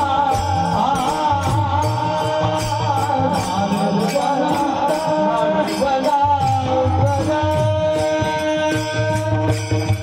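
Devotional kirtan singing: a solo male voice sings a wavering, ornamented melody over held instrument notes, with a steady beat on a low drum and rhythmic hand cymbals.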